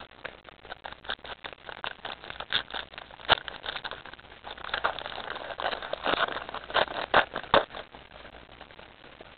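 Close handling noise from trading cards and their packaging: crackling and rustling, dotted with sharp clicks and taps. It is busiest in the middle, with the loudest taps about three seconds in and again around seven seconds.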